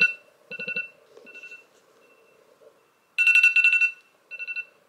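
Phone alarm going off to wake her: bursts of rapid, high, pulsed beeping, loudest about three seconds in.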